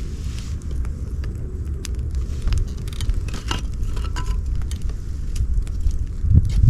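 Campfire burning: wood crackling with many sharp snaps and pops scattered irregularly over a steady low rumble.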